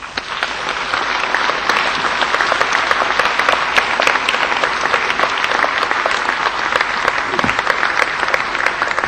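Audience applauding, starting abruptly and easing off near the end.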